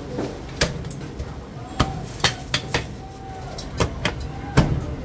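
Cleaver chopping through a roast goose onto a thick round wooden chopping block: about seven sharp chops at irregular intervals, the last and loudest near the end.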